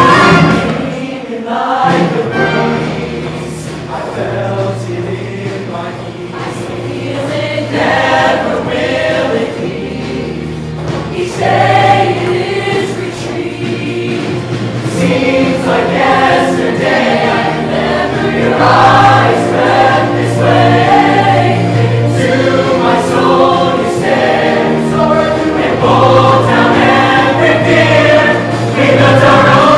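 Mixed show choir singing with instrumental backing and steady bass notes. It drops softer about two seconds in, then builds back up over the rest.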